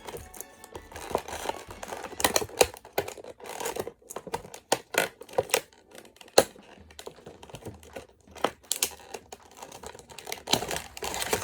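Toy packaging being torn and picked open by hand: irregular crackles, scratches and sharp clicks.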